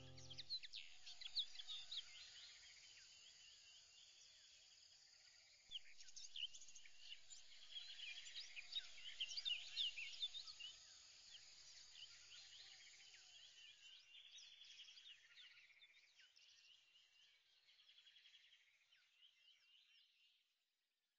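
Faint chorus of many small birds chirping, busiest in the middle and thinning out toward the end.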